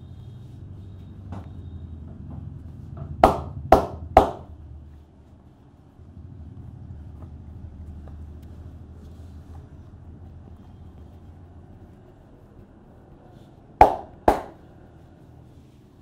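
Sharp hand strikes of a barber's head massage: three quick slaps about three seconds in and two more near the end, over a low steady rumble.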